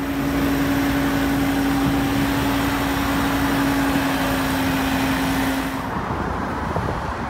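Motor-vehicle noise: an engine running with a steady drone over a wash of road traffic. The drone cuts off about six seconds in, leaving quieter traffic noise.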